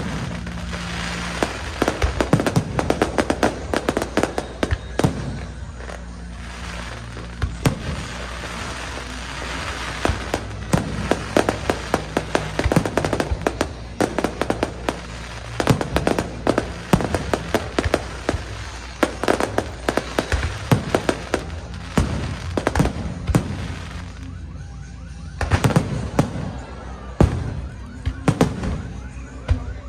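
Aerial fireworks going off in quick succession, sharp bangs in clusters with crackling, easing off briefly near the end before starting again.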